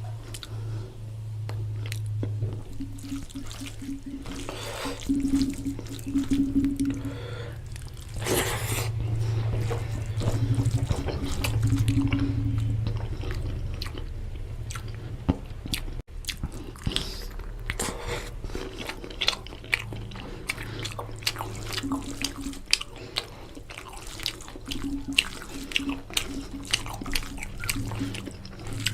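Close-up wet chewing and lip-smacking of a person eating mutton curry with rice: many short wet clicks and smacks throughout, over background music with a low repeating bass line.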